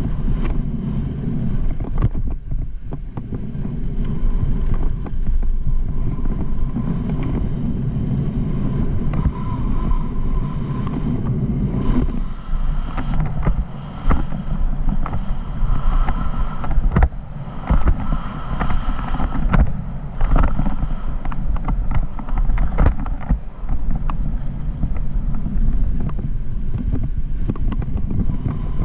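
Wind buffeting a helmet-mounted camera and tyres rolling over a dirt trail during a fast mountain-bike descent, with frequent sharp knocks and rattles from the bike over bumps and ruts.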